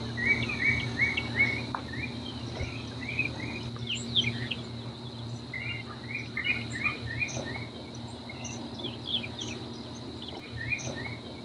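Marsh ambience: a bird singing bouts of quick repeated short downward-slurred notes over a steady high insect drone, with a low steady hum beneath.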